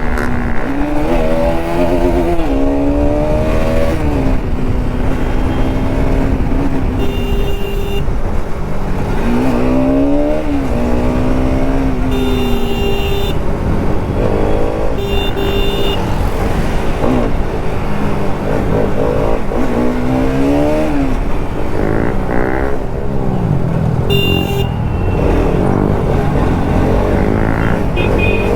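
Bajaj Pulsar RS200's single-cylinder engine revving hard, its pitch climbing steeply and dropping again five or six times as the bike accelerates up through the gears, over a steady rush of wind noise.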